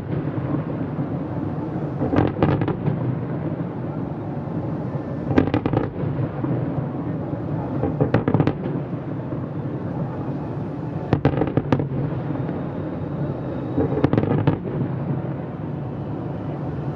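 Fireworks shells bursting in clusters of sharp bangs and crackles, about every three seconds, over a steady low rumble.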